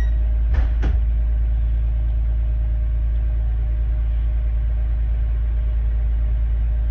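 MAN underfloor diesel engine of a Class 769 bi-mode unit idling with the train stationary, a steady low rumble heard from inside the passenger coach. Two short knocks come a little under a second in.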